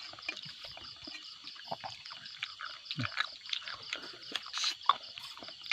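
A frog chorus croaking over a fast, steady, pulsing high trill, with scattered small clicks and knocks.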